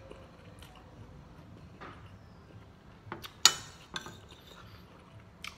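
A metal spoon clinking against a plate while scooping rice: one sharp clink about three and a half seconds in, with a few lighter taps around it.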